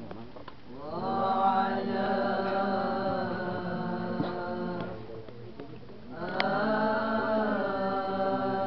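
A group of boys chanting an Arabic tawshih together, holding long, ornamented notes. One phrase swells in about a second in and fades out around five seconds. A second phrase follows about a second later.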